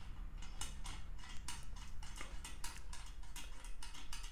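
Small metal clicks as the brass fuel filler cap of a Coleman 288 lantern is screwed onto its steel fuel tank by hand, in an irregular run of about four or five a second.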